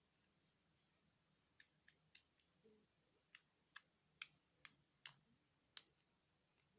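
Faint, sharp clicks and pops from homemade clear-glue slime being stretched and squeezed by hand, air bubbles in it popping: about ten irregular clicks starting about a second and a half in.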